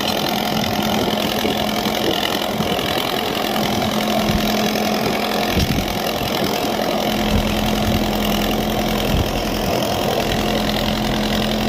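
Solis tractor's diesel engine running steadily under load as it pulls a plough through the soil.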